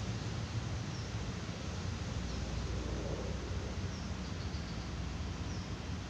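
Steady outdoor background of low rumble and hiss, with faint, short high bird chirps every second or two.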